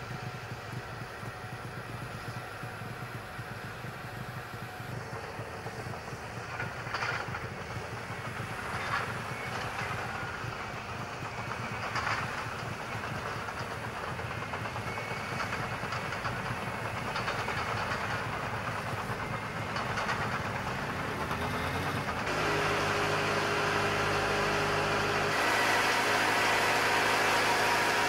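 Heavy engines running: a tracked bulldozer working on the snow, with a few short clanks. After about 22 s a steady, louder drone takes over, from a diesel generator set running inside a container module.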